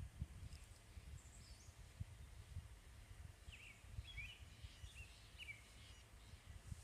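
Near silence: a few faint, short bird chirps, most of them in the second half, over a low background rumble.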